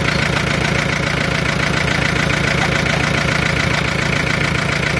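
Tractor engine running steadily, an even continuous drone.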